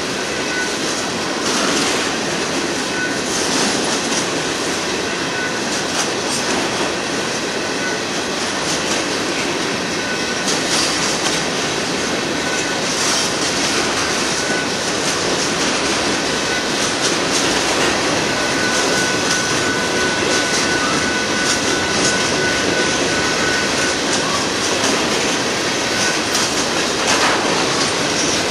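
Freight cars of a Union Pacific manifest train rolling past: a steady rumble and rattle of steel wheels on rail, with clickety-clack over the joints. A thin wheel squeal comes in briefly near the start and again for a few seconds about two-thirds of the way through.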